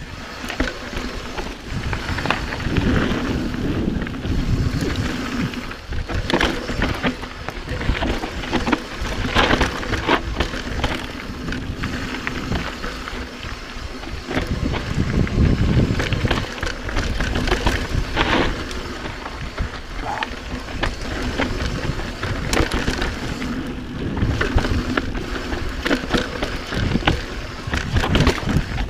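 Mountain bike riding fast down a rough dirt singletrack: tyres rolling over dirt and roots, with frequent knocks and rattles from the bike over the bumps and a fluctuating rumble of wind on the microphone.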